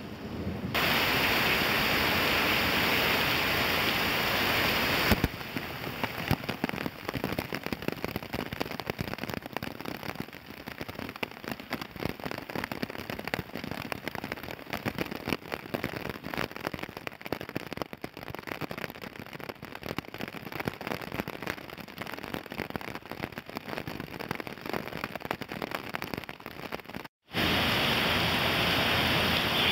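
Heavy tropical rain. It starts as an even, loud hiss, then for most of the time becomes a dense crackle of drops hitting a wet tiled deck close by. After a brief cut-out near the end, it turns back to a steady hiss of a downpour on a flooded street.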